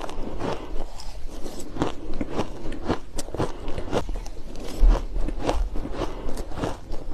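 Ice being bitten and crunched between the teeth, picked up close to the microphone: a quick, irregular run of sharp cracks and crunches, the loudest about five seconds in.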